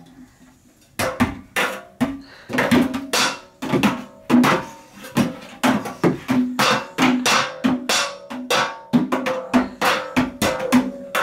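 Household lids and containers banged together and against a large tin canister by hand, starting about a second in and going on at roughly two hits a second, unevenly. Each bang rings briefly with a hollow, pitched tone.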